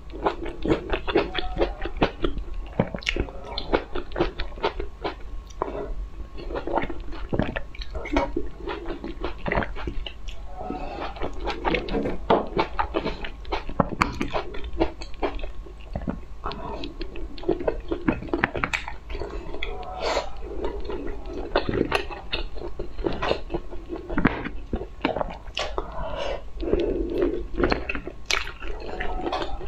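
Close-miked eating sounds: chewing and biting food, with many short, sharp, irregular clicks.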